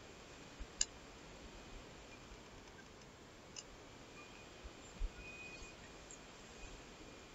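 Faint handling noises from hands wrapping a pitta wrap in a paper towel on a plate: a sharp click about a second in and a soft knock about five seconds in, over low room tone.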